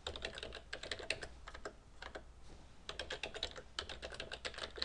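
Typing on a computer keyboard: two quick runs of keystrokes with a pause of about a second between them.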